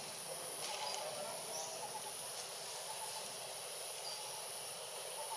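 Outdoor ambience dominated by a steady, high-pitched insect drone, with a few brief high chirps over it.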